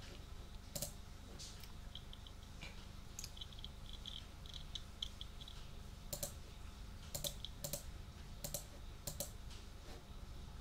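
Computer keyboard and mouse clicking: a run of light, quick clicks in the first half, then several louder, sharp clicks, some in quick pairs, in the second half.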